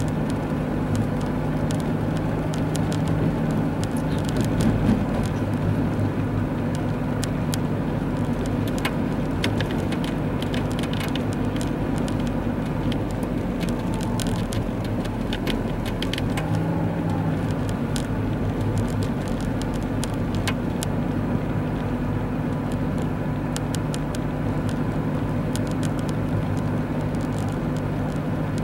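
Car cabin noise while driving on a snow-covered road: the engine runs and the tyres roll steadily, with light scattered ticks.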